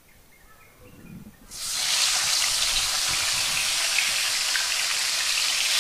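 Catfish frying in hot oil in a wok. A sudden loud sizzle starts about a second and a half in, as the fish hits the oil, and goes on as a steady hiss with small crackles.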